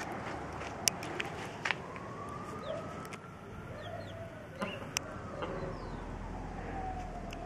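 Hen clucking, with chicks giving short high peeps, and a few sharp taps scattered through, the loudest about a second in.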